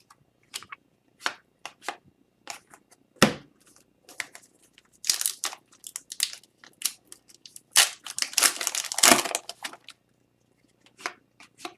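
Hockey trading cards and their pack wrappers being handled: a run of short snaps, rustles and crinkles as cards are flipped through, busiest in the middle of the stretch.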